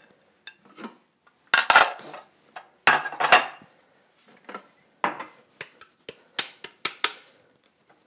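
Clatter and knocks of a Thermomix's stainless-steel mixing bowl and lid being handled as the bowl is taken out and emptied of chopped parmesan. Two loud bursts of clatter in the first half, then about half a dozen sharp knocks in quick succession.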